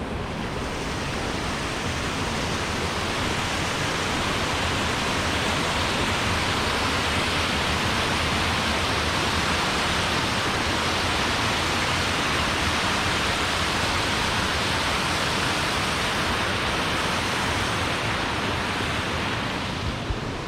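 Waterfall rushing: a steady wash of falling water that swells a little over the first few seconds.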